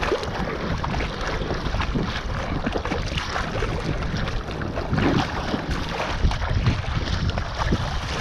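Choppy sea water sloshing and splashing right at the microphone in irregular slaps, with wind buffeting it.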